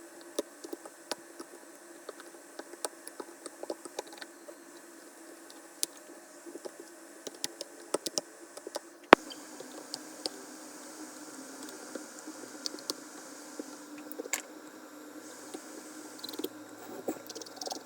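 Small repair tools clicking and tapping on a phone, in irregular sharp ticks over a faint steady hum, with one loud click about nine seconds in.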